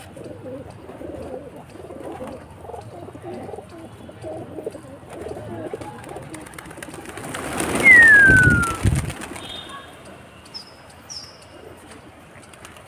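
Domestic pigeons cooing in a steady murmur of low calls. About halfway through there is a loud rush of noise lasting a couple of seconds, with a single clear whistle falling in pitch. A few faint high chirps come near the end.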